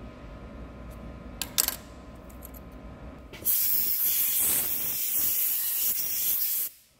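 Compressed-air blow gun blasting, a loud steady hiss of about three seconds starting about halfway in and cutting off suddenly near the end, clearing swarf from a freshly tapped hole in a hardened lathe chuck jaw. A couple of brief metal clinks come shortly before it.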